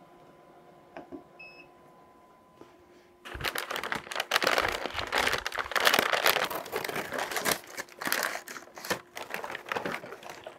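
A short electronic beep from the pellet smoker's control panel as its temperature is set, then, from about three seconds in, heavy paper wrapping crinkling loudly as it is unfolded from around a smoked goose.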